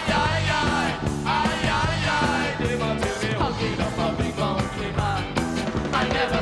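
Reggae music: a steady, repeating bass rhythm with a gliding lead melody over it.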